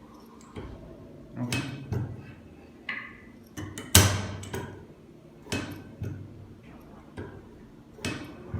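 Irregular clicks and knocks of metal parts and bottles being handled on a manual crimping machine, with one sharp knock about four seconds in louder than the rest.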